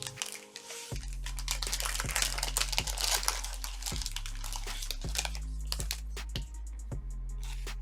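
Crinkling and tearing of a trading-card pack's plastic wrapper as it is opened and handled. The crackling is densest in the first half and thins out after about five seconds.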